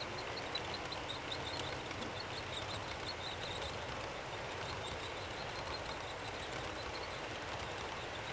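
Model railway grain hopper wagons rolling past on the track: a steady rolling noise with light, rapid clicking from the wheels.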